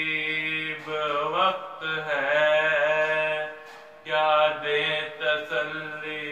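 A man's solo voice chanting a Muharram salam (mourning elegy) without instruments, in long held notes with slow melodic bends, and a short pause for breath about two-thirds through.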